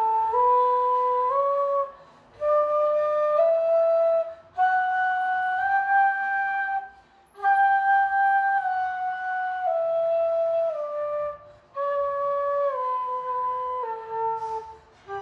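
A bamboo bansuri flute playing a slow melody in short phrases of held notes that step up and down, with brief breath pauses between phrases. It is being played to show the tone of a newly made flute.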